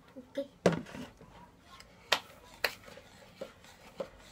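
Plastic kitchen containers and utensils knocking and clinking on a table as they are handled: six or so irregular sharp clacks, the loudest just under a second in.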